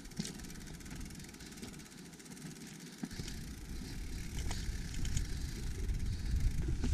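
YT Capra mountain bike rolling over rocky singletrack: the tyres crunch on loose stones, with a few scattered ticks and rattles from the bike. A low wind rumble on the microphone swells from about three seconds in and grows louder toward the end.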